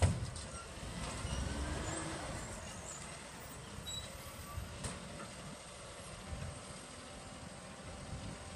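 Garbage truck's diesel engine running at a distance as it drives up the street and draws to a stop, its note rising about a second in and then easing off. A sharp thump right at the start is the loudest sound.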